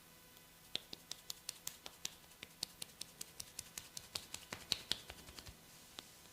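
A masseur's fingers snapping in a fast, even run of sharp clicks, about five a second. The run starts just under a second in and stops about a second before the end, with one last snap after it.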